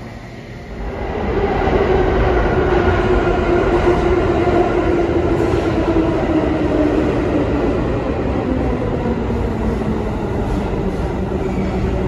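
A New York City subway train running into the station on the express track: the rumble and wheel noise swell up about a second in and stay loud, with a motor whine that drops slightly in pitch as the train slows.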